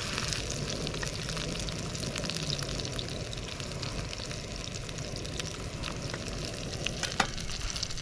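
Olive oil sizzling in a pan on a portable gas cartridge stove as a stuffed flatbread fries: a steady hiss dotted with small pops, and one sharper tick about seven seconds in.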